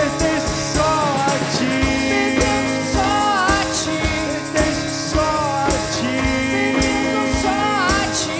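Worship band music: acoustic guitar and drums keeping a steady beat under a melody line that slides and bends, recurring every couple of seconds.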